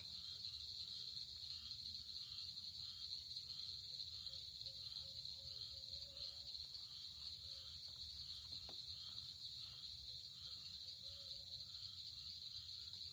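Steady, high-pitched chorus of swamp insects such as crickets, with a softer call pulsing about twice a second beneath it.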